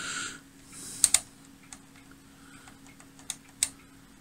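Sharp mechanical clicks of a Voltcraft 2040 analogue oscilloscope's front-panel switches and knobs being set: a close pair about a second in and two more around three and a half seconds, over a faint steady hum.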